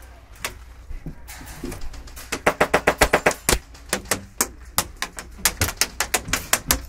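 Airsoft rifles firing in several strings of rapid shots, about ten a second, with short pauses between them, starting about two seconds in.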